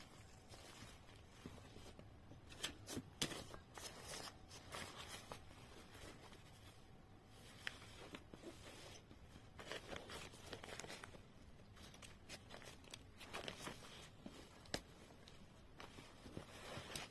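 Faint rustling and brushing of cloth as sewn fabric pouches are handled and smoothed flat, with a few light ticks and taps.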